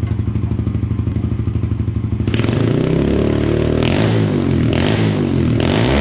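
Yamaha TT-R 110's small four-stroke single-cylinder engine, fitted with an FMF PowerCore 4 exhaust, idling steadily, then revved up and down several times in throttle blips from a little over two seconds in.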